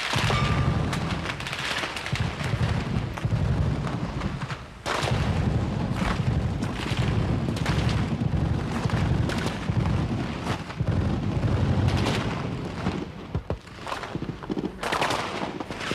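Gunfire in a combat zone: many sharp shots and cracks, some in quick runs, over a heavy low rumble.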